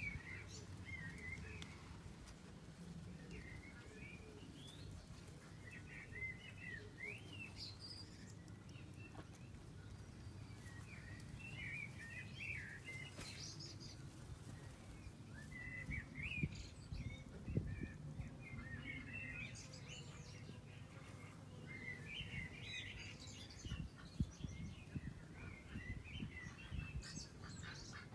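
Young Muscovy ducks peeping in scattered bursts of short, quickly gliding chirps, over a steady low background rumble, with a couple of sharp knocks.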